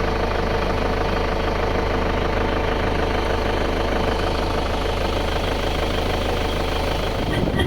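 Vehicle engine running steadily with an even low hum, and a louder low rumble coming in near the end.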